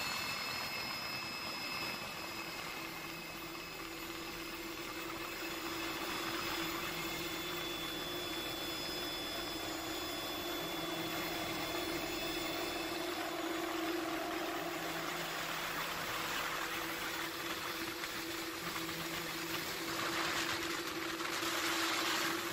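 Steady helicopter cabin noise: the engine and rotor drone with a constant hum and rushing hiss, heard from inside the aircraft. The hiss swells briefly near the end.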